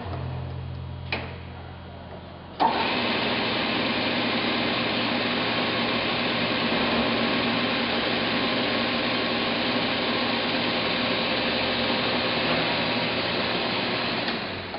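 Emco Maximat Super 11 bench lathe: two clicks from the headstock controls, then the spindle starts abruptly about two and a half seconds in and runs steadily with a whine of several tones, winding down near the end.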